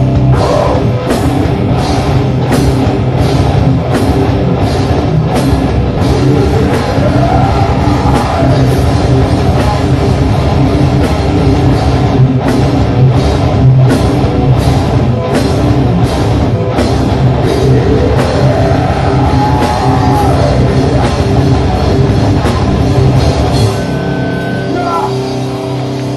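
A live heavy rock band playing loud: distorted electric guitars, bass and a drum kit keep a steady beat. Guitar bends rise and fall twice, and the music eases off near the end.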